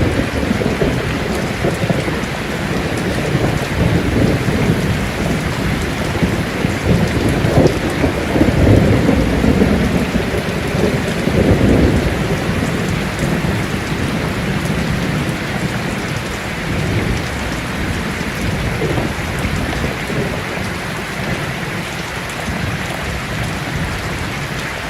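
Steady rain falling, with a long low rumble of thunder that swells through the middle and then fades.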